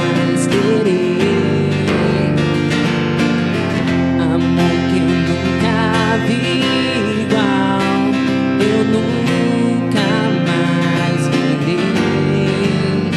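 Acoustic guitar strumming a steady accompaniment with a wavering melody line with vibrato above it: an instrumental passage of a Brazilian MPB/pop song.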